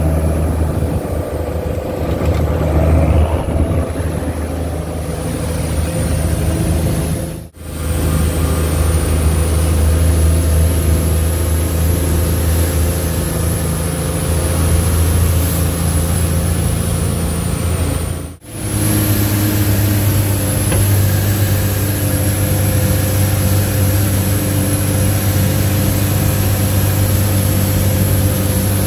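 Leyland truck's 411 engine running while the truck drives, heard from inside the cab as a steady low hum. It comes in three stretches, split by two brief drop-outs about a quarter and two thirds of the way through.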